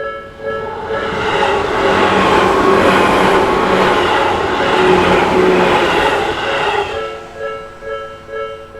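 Japanese level-crossing warning bell ringing steadily at about two strokes a second while a Tobu Isezaki Line electric train passes through the crossing. The train's rush covers the bell from about a second in for some six seconds, then the bell is heard plainly again.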